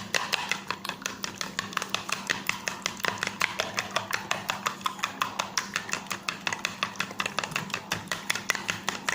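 Eggs being beaten in a bowl with a utensil: a fast, steady run of clicks, about seven strokes a second, as the utensil strikes the bowl.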